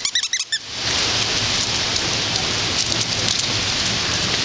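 Squeaky toy squirrel squeaking in a quick run of about seven short squeaks in the first second as puppies tug it, then a steady hiss.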